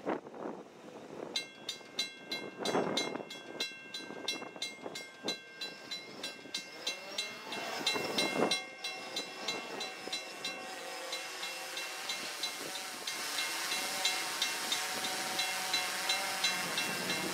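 Railroad grade-crossing warning bell ringing in a fast, even rhythm, starting about a second in. The noise of an approaching Union Pacific diesel freight train grows louder over the second half.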